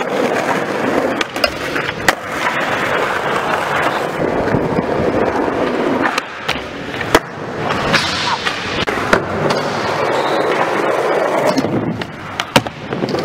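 Skateboard wheels rolling over a smooth skatepark floor, broken by a few sharp clacks as the board pops and lands during tricks.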